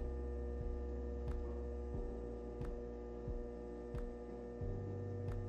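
Electric potter's wheel running, a steady motor hum with a throbbing low drone, and a faint sharp tick about every second and a quarter.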